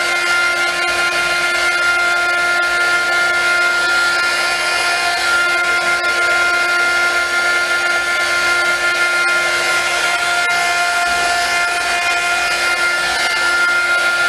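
Heat gun running steadily, its fan motor whining over the hiss of rushing air, as it blows across wet alcohol ink on an epoxy-coated tumbler.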